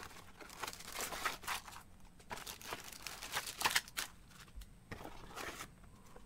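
A cardboard box being opened and clear plastic bags of model-kit parts being handled and laid down: a string of irregular soft crinkles, rustles and light clicks.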